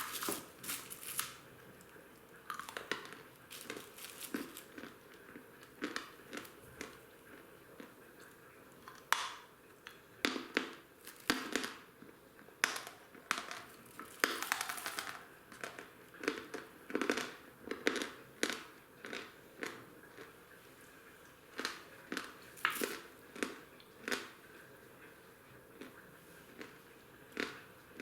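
Hard, very crunchy Volokonovka natural chalk (a clay-like chalk) being bitten and chewed close to the microphone. The crunches come in irregular clusters with short pauses between bites.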